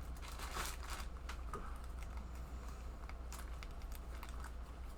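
Hands handling diamond painting kit materials, making scattered light clicks, taps and rustles over a low steady hum.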